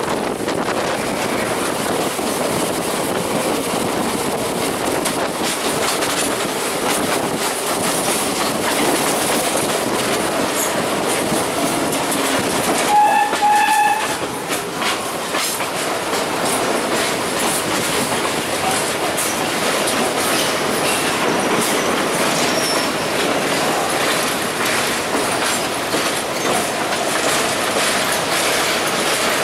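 Steady running noise of a suburban local train heard from on board, its wheels clattering on the rails. A train horn sounds for about a second near the middle.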